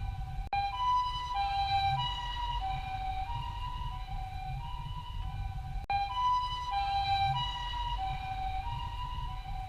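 Japanese ambulance siren sounding its two-tone hi-lo "pee-po" call, a higher and a lower tone alternating about every half second, over a low rumble. The sound cuts out for an instant twice, about half a second in and near six seconds.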